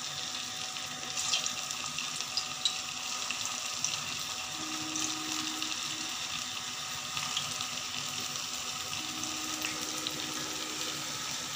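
Potato-stuffed bread rolls frying in hot oil in a metal kadhai: a steady sizzle with scattered crackles, and a few sharper pops in the first few seconds as rolls are slid into the oil.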